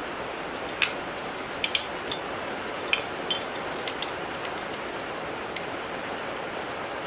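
Light metallic clinks of a small engine's timing chain and a steel pick knocking against the cylinder studs as the chain is fed up through the cylinder: a handful of sharp, irregular clicks over a steady hiss.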